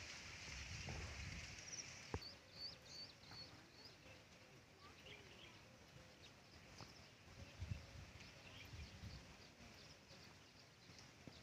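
Faint open-field ambience: scattered small-bird chirps and a steady high hiss that fades over the first couple of seconds, with low wind rumble on the microphone now and then and one sharp click about two seconds in.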